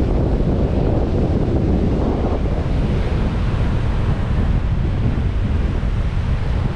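Heavy storm surf from an approaching hurricane crashing and washing ashore, with strong wind buffeting the microphone in a steady low rumble. The wash of the surf is strongest in the first couple of seconds, then eases a little.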